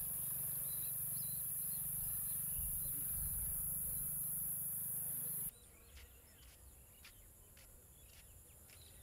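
Rice paddy field ambience: a steady high-pitched insect drone with a low hum beneath, which cuts off suddenly about halfway through, leaving quieter field sound with a series of sharp clicks.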